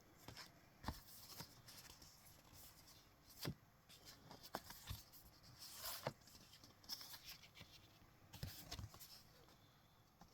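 Faint handling of collector cards: scattered light clicks, taps and brief rustles of card against card.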